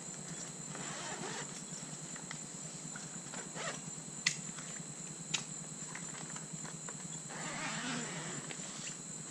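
Rustling and scraping of a nylon backpack and the folded PVC inflatable kayak inside it as the kayak is pulled out of the bag, with two sharp clicks about four and five seconds in. A faint steady high-pitched whine runs underneath.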